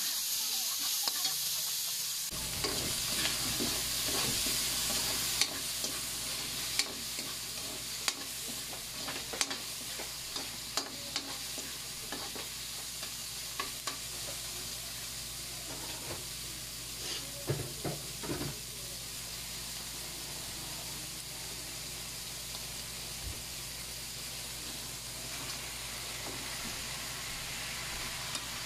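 Tomatoes and onions sizzling in a hot steel wok, with scattered clicks and scrapes of a metal ladle against the pan as they are stirred.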